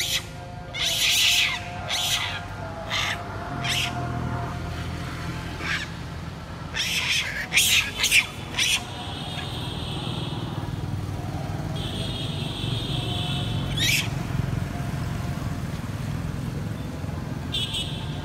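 Long-tailed macaques giving a string of short, high-pitched screams, thickest in the first half, over a low rumble of passing traffic.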